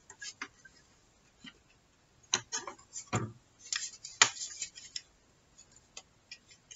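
Paper pages and kraft card covers being handled and turned on metal book rings: scattered rustles and light taps, busiest in the middle.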